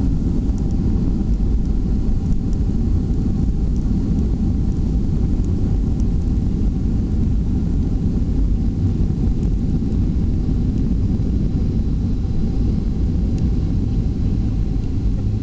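Steady low rumble inside the cabin of a Boeing 737-400 rolling out on a wet runway after touchdown, its engines and wheels running together without a rise or fall in level.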